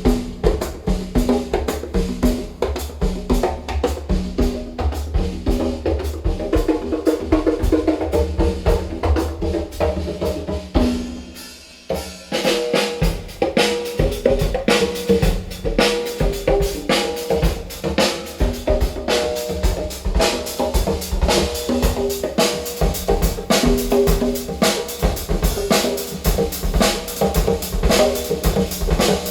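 Percussion track with a drum kit (bass drum and snare) played loud through a hi-fi speaker system of many midwoofers, a Heil air-motion-transformer tweeter and twin REL subwoofers. The beat thins out briefly about eleven seconds in, then comes back at full strength.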